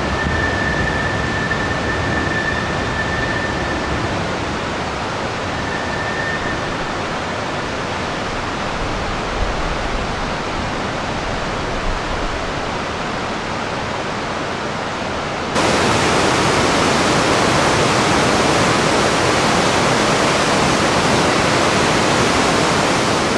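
Steady rushing of water, with a train's wheels squealing faintly in a high steady tone over it for the first few seconds and once more about six seconds in. About two-thirds of the way through, the sound cuts suddenly to a louder, brighter rush of fast-moving water.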